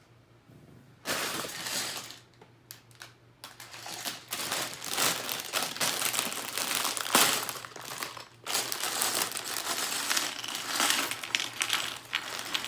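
A plastic LEGO parts bag crinkling loudly as it is torn open and handled. It starts about a second in, pauses briefly, then goes on almost without a break.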